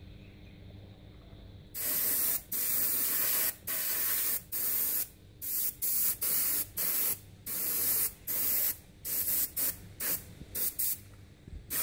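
A Paasche H single-action airbrush spraying thinned enamel paint in a series of short hissing bursts as the air is switched on and off, starting about two seconds in. The compressor is set to about 20 psi.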